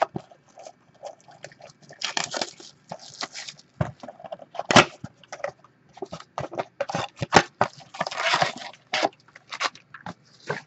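Cardboard trading-card blaster box being opened and its foil-wrapped card packs taken out and handled: a string of clicks, taps and rustles, with longer rustling stretches about two seconds in and about eight seconds in.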